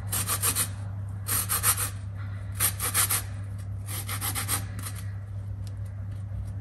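Lemon being zested on a flat stainless-steel grater: four quick runs of scraping strokes about a second and a half apart, fainter near the end.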